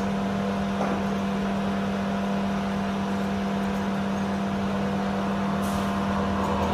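Steady mechanical hum: a strong constant low drone with a few fainter steady tones above it, over an even rushing noise.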